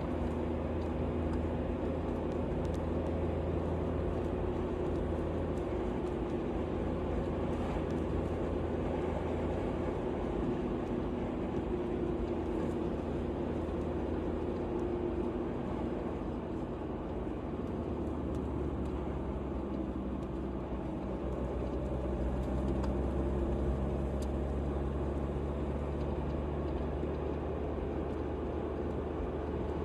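A motor vehicle's engine running steadily over road noise, its low note shifting about halfway through.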